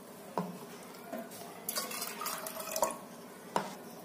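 Water poured from a plastic measuring cup into a pressure cooker of soaked moong dal, with about four light knocks spread through the pouring.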